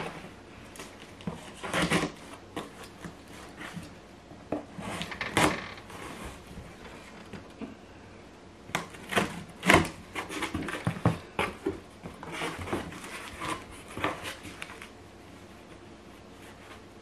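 Scissors slitting packing tape along the seams of a cardboard box, then the cardboard flaps being pulled open: irregular scraping, tearing and rustling with several sharp knocks.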